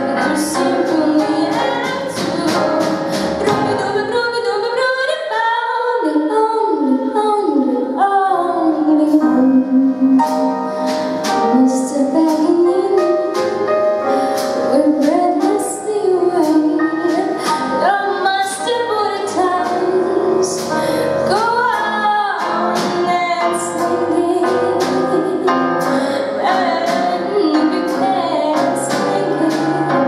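A woman singing a swing-style song into a microphone, accompanied live by a small ensemble of strings, piano and drum kit, with a steady beat from the drums.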